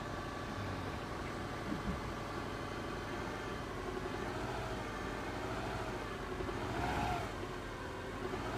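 Subaru Legacy BH5 engine idling soon after a cold start, with a whine that wavers up and down in pitch from about four seconds in. The noise is the one a dealer put down to the power-steering pump, which can sing when cold.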